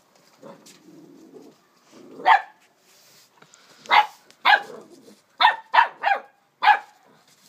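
English springer spaniel puppy barking in play at a brush: one bark about two seconds in, then six more in quick succession over the next three seconds.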